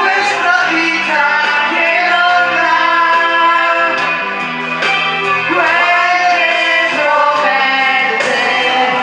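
Music: a song with a singing voice over instrumental backing, playing steadily.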